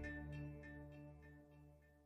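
Background music fading out: a held chord dying away with a few soft, light notes repeating over it.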